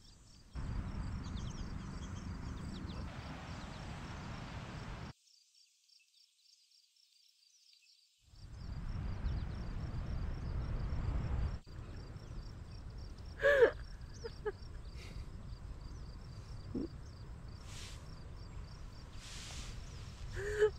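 Campsite ambience: a steady rushing noise with faint, rapid insect chirping running through it, cut out for about three seconds near the middle. A few short, sharp sounds stand out in the second half, the loudest about two-thirds of the way in and again at the very end.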